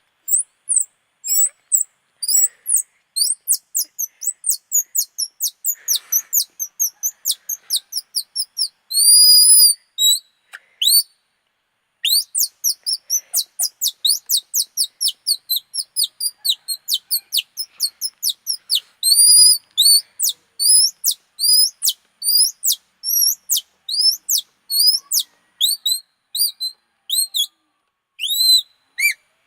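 Bird-call imitation blown on a stretched strip of torn plastic: long runs of rapid high-pitched chirps, several a second, broken by a few longer arched whistled notes and a short pause about eleven seconds in.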